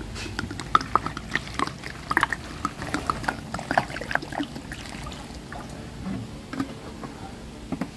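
Water poured from a plastic jug splashing and dripping onto fresh vegetables in a plastic tub, in many small irregular splashes that thin out after about five seconds.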